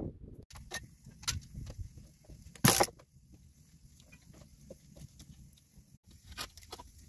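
Scattered light knocks and clicks of stones and tools being handled on rocky ground, with one loud knock a little over two and a half seconds in.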